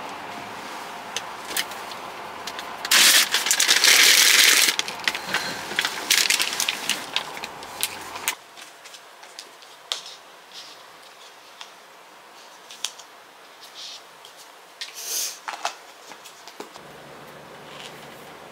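Rustling and crinkling handling noises with many scattered clicks, loudest in a long rustle about three seconds in. About eight seconds in, the background noise drops away suddenly, leaving only sparse clicks and one more short rustle near the end.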